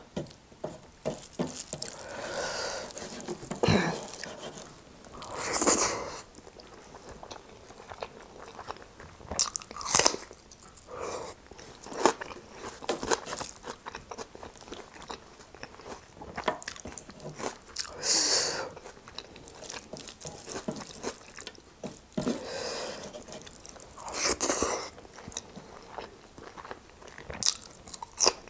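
Close-up eating sounds: a person chewing and biting a mouthful of rice and pork trotter eaten by hand, with irregular crunches and wet mouth clicks and a few louder chewing swells every few seconds.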